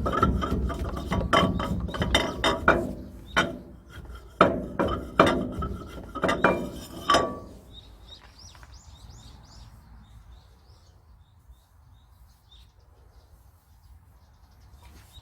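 Irregular metal knocks and clanks, a few ringing briefly, from hammer and tool work on a dump truck's suspension. They stop about halfway through, and after that birds chirp faintly.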